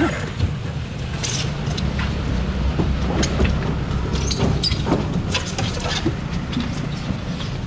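Steady low rumble of a motor vehicle, with scattered short clicks and knocks over it.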